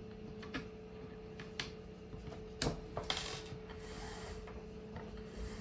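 Hands threading paracord through a 3D-printed plastic mag holder: a few light plastic clicks, the sharpest about two and a half seconds in, then a rasping rub of cord drawn through a hole for a second or so.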